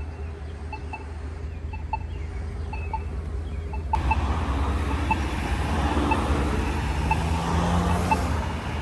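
Polara iNS accessible pedestrian pushbutton giving its locator tone, a short tick about once a second. Road traffic noise swells from about four seconds in as vehicles pass.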